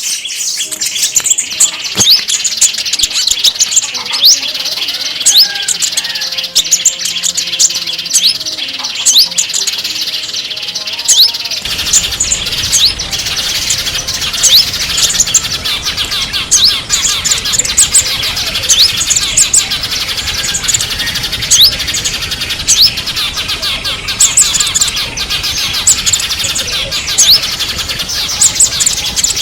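Small songbirds chirping and tweeting busily, a dense run of short high calls with many quick rising notes. About twelve seconds in, a low steady background rumble comes in under the calls, as one recording gives way to another.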